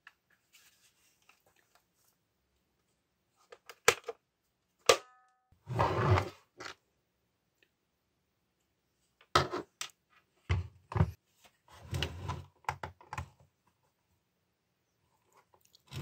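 Handling noise from a Makita electric chainsaw's plastic body: scattered sharp clicks and knocks, one with a short ring, and short spells of rubbing and scraping as it is turned over and worked by hand.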